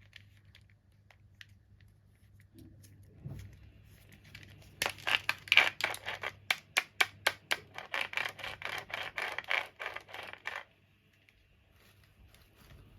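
Doll packaging being opened by hand: a run of sharp scratching, tearing strokes, about three or four a second, lasting some six seconds and then stopping abruptly.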